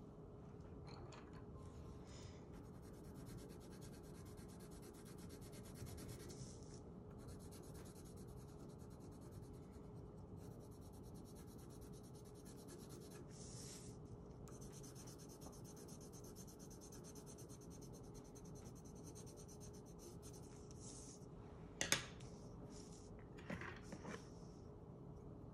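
Coloured pencil scratching on paper in long shading strokes that start and stop, over a faint steady hum. A sharp tap near the end is the loudest sound, followed by a couple of softer ones.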